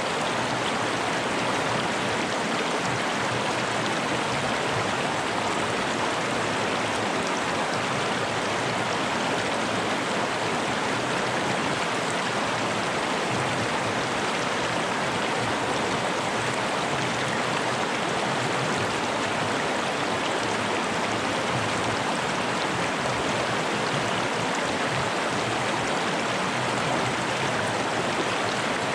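Fast-flowing mountain river rushing over rocks: a steady, unbroken sound of water.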